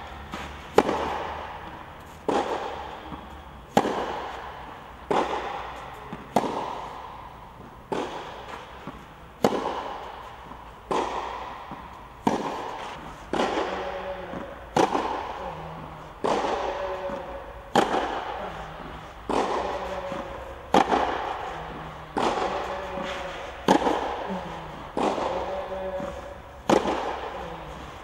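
Tennis balls struck with rackets in a steady baseline rally, a sharp hit about every one and a half seconds. Each hit echoes through the enclosed indoor court hall.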